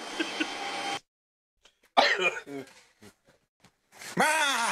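Upright vacuum cleaner running, cut off abruptly about a second in. After a short silence, a person's sharp startled cry about two seconds in, then a longer wavering yell near the end.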